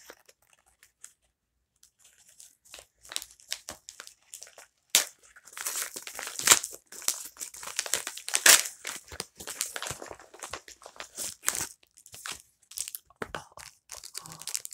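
Packaging being unwrapped by hand: wrapping crinkling, crumpling and tearing in irregular crackles. It starts after a couple of seconds of near silence and is loudest in the middle.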